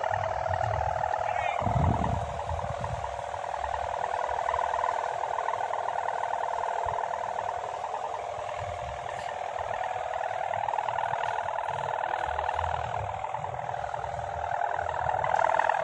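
A kite hummer (sendaren) on a flying gapangan kite, humming steadily with a fast, fluttering buzz ("ngiklik"); its pitch wavers slightly. Low wind rumble on the microphone underneath.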